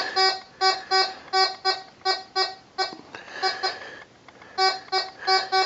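Tesoro Compadre metal detector with an 8-inch coil giving its target tone: short, buzzy beeps, all at one pitch, about two to three a second, each one a pass of a small metal find over the coil in an air test. The beeps pause briefly about three and a half seconds in, then resume.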